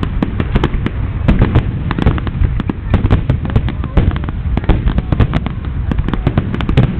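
Aerial fireworks going off in a dense, continuous barrage: many sharp bangs and crackles a second over a steady deep rumble.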